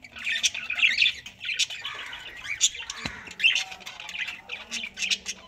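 A flock of budgerigars chattering, with many short, overlapping chirps and squawks. A single sharp click about three seconds in.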